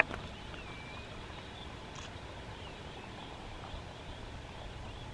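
A sharp click at the very start, then a few faint, high chirps from a flying flock of semipalmated sandpipers over a steady background hiss.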